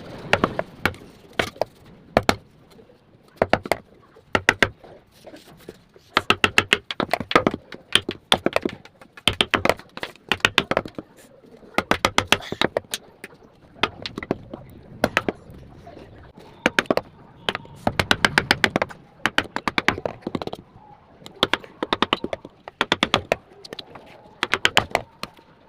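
Runs of sharp clicks and taps, several in quick succession, then short pauses, repeating throughout.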